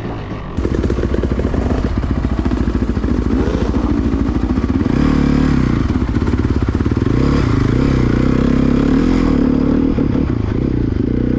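Honda CRF450 dirt bike's single-cylinder four-stroke engine running hard under the rider, getting suddenly louder about half a second in. Its pitch rises and falls several times in the second half as the throttle is rolled on and off through the gears.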